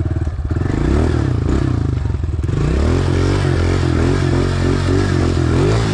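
Dirt bike engine running under throttle, its revs rising and falling again and again, with a rushing noise over it. The engine comes in stronger about three seconds in.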